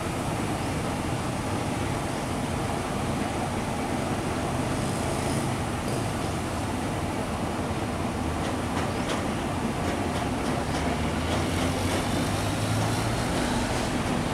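Small river tugboat's diesel engine running steadily as it works a barge, a continuous low drone that grows a little stronger near the end.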